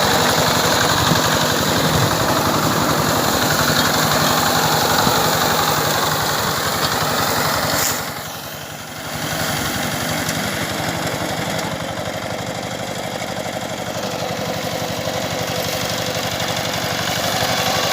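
Engine of a rice harvesting machine running steadily. Its sound dips briefly about eight seconds in, then carries on a little quieter.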